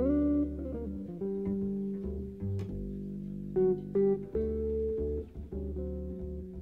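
Instrumental background music: a slow melody of held notes over a steady lower part.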